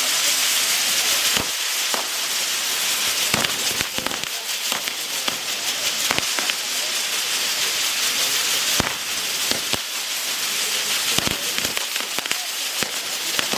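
Fireworks going off: a steady hiss with many sharp cracks and bangs at irregular intervals.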